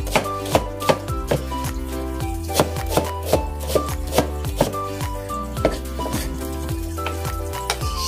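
Knife chopping on a cutting board, about two cuts a second, with background music playing under it.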